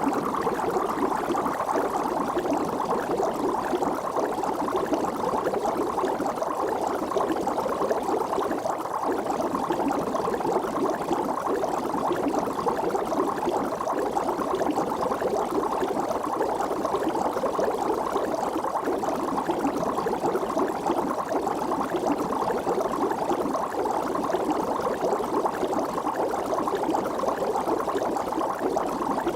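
Water bubbling steadily and evenly, a dense continuous stream of bubble pops with no pauses or changes.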